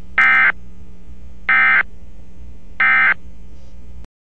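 Emergency Alert System end-of-message code: three short bursts of buzzing digital SAME data tones, about 1.3 seconds apart, over a low steady hum. The audio cuts off just before the end.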